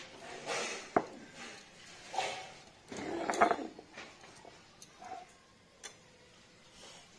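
Stone roller grinding spice paste on a flat grooved stone slab (shil-nora): a few rough grinding strokes with a sharp knock about a second in, the loudest stroke near the middle. After that come only faint scrapes and ticks as the paste is gathered by hand.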